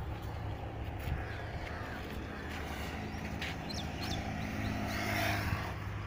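Wind rumbling on the microphone outdoors, with the hum of a passing motor vehicle's engine rising from about halfway through and fading near the end, and a few short bird chirps in the middle.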